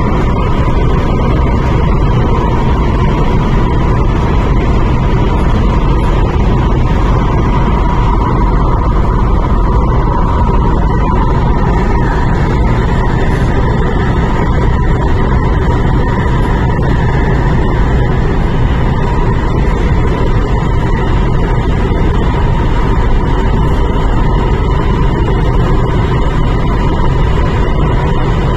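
MTR Tuen Ma line IKK-Train running at steady speed, heard from inside the car: a loud, even rumble of wheels on rail with a steady high hum over it.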